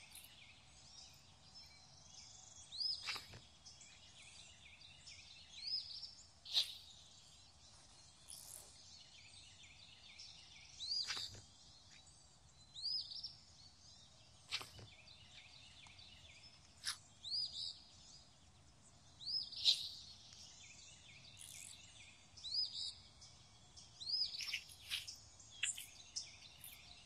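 Faint nature ambience with birds calling: short chirps recurring every two to three seconds over a soft, steady background hiss.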